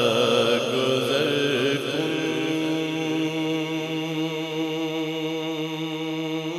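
A man reciting a naat, singing a long wordless phrase whose pitch winds up and down, then holding one steady note from about two seconds in.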